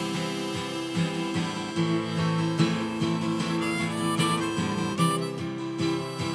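Harmonica played from a neck holder over a strummed acoustic guitar, an instrumental passage with no singing.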